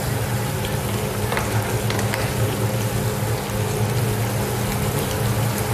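Green beans sizzling as they sauté in a pan, a steady frying hiss with a few faint ticks, over a steady low hum.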